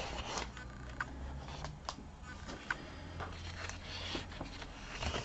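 Faint taps, clicks and light rustles of 12x12 scrapbook paper sheets being handled and turned over, over a low steady hum.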